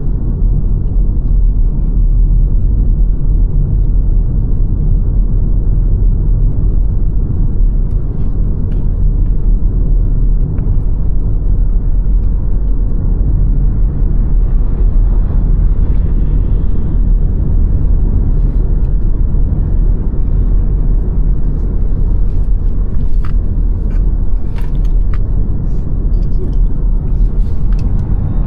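Car driving along a road: a steady low rumble of engine and tyre noise, with a few faint clicks in the last few seconds.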